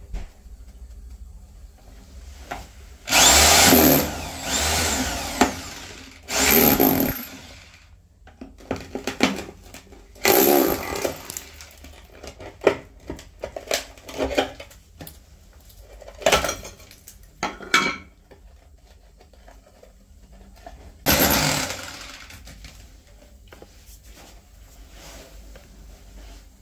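A power tool run in short bursts, about six times. The longest bursts come about three seconds in and again about twenty-one seconds in.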